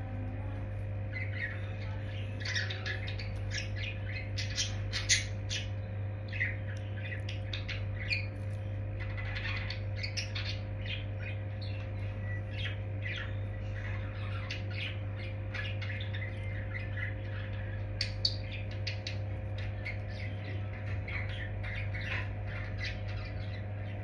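Budgerigars chattering in quick, short chirps and squawks, with a few louder squawks, over a steady low hum.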